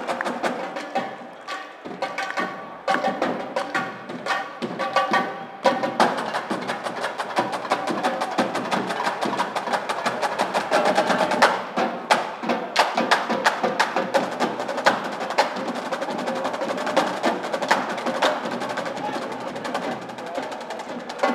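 Marching drumline playing a cadence on snare drums, tenor drums and bass drums, with dense, rapid stick strokes throughout.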